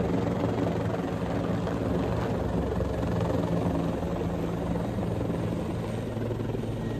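Helicopter flying with a steady rotor and engine drone.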